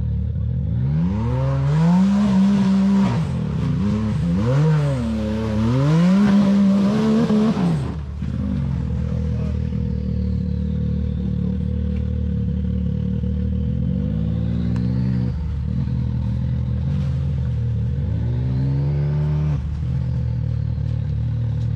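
Can-Am Maverick X3's turbocharged three-cylinder engine running through an RPM Powersports side-exit drag pipe with muffler: three quick revs in the first eight seconds, then a steady idle with two more short revs later on.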